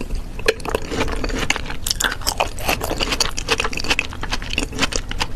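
Close-miked chewing and eating: a dense run of small wet clicks and crunches of food being bitten and chewed.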